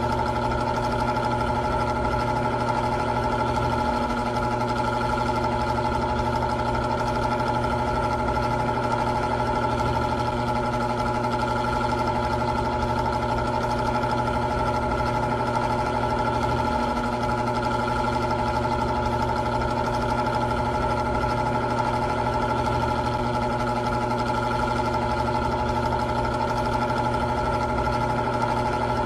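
Old electric fan running steadily: a motor hum of several held tones over an even whir of moving air.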